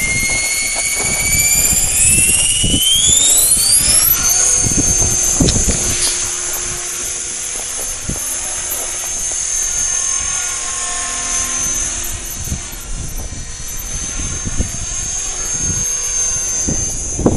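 CopterX 450SE electric RC helicopter with an ARC 3700 brushless motor spooling up: a high whine rises steeply over about four seconds, then holds a steady high pitch while the helicopter flies.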